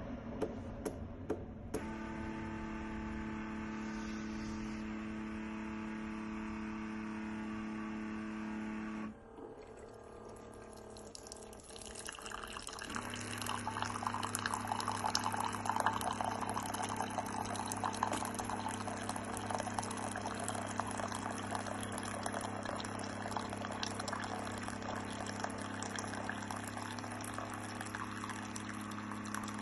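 Keurig Duo coffee maker brewing a K-Cup: a few clicks, then the machine hums steadily. About nine seconds in the hum stops briefly. A few seconds later it resumes with hot coffee streaming and dripping into the cup.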